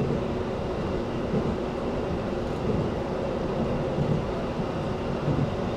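Steady running rumble heard inside a JR E257-series electric limited-express train travelling at speed on the line.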